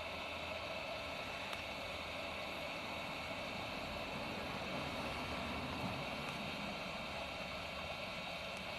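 Hot-air gun blowing steadily while heating the back of a phone to soften the adhesive.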